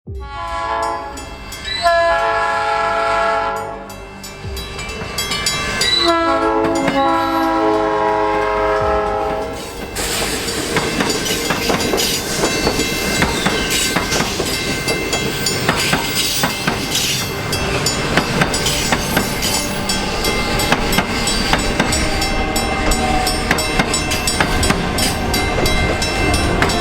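Train horn sounding two long blasts, then a train passing close by with a steady rumble and rapid clatter of wheels over the rails.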